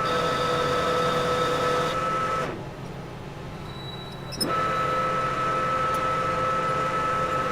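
Metal lathe running with a steady gear whine. About two and a half seconds in the whine drops away and the sound turns quieter for about two seconds, then comes back with a sharp click.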